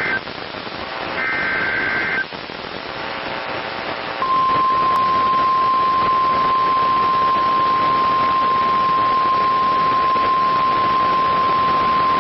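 NOAA Weather Radio emergency alert broadcast over hiss: short warbling two-tone digital SAME header bursts in the first two seconds, then about four seconds in the steady single-pitch 1050 Hz warning alarm tone, loud and unbroken, signalling a tornado warning.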